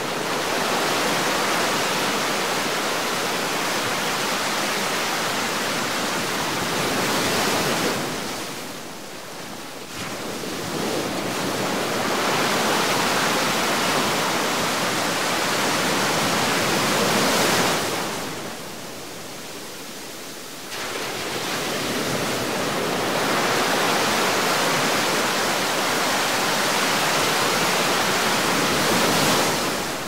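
Heavy ocean waves surging and washing in: a loud, continuous rushing that builds and falls back in three long swells of about eight seconds each, with short lulls between them.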